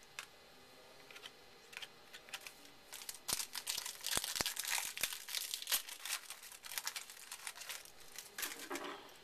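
Trading card packs being opened by hand: the wrapper crinkling and tearing and the cards rustling. It starts about a second in and is busiest in the middle, with a few sharp snaps.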